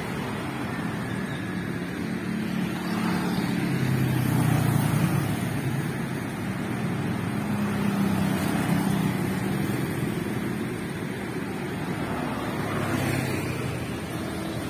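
Street traffic: motorbikes and cars passing on the road, a steady hum of engines and tyres that swells three times as vehicles go by.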